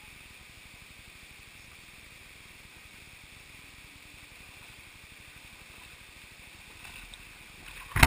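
Steady, gentle rush of a shallow rocky stream. Near the end it grows louder as someone wades up close through the water.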